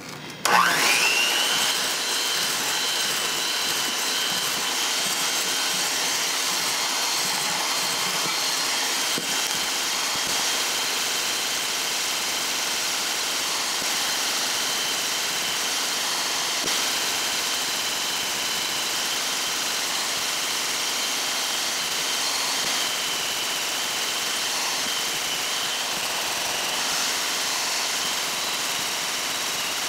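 Black & Decker electric hand mixer switched on, its motor whining up to speed about half a second in, then running steadily as its whisk beaters beat egg yolks and melted butter into mayonnaise.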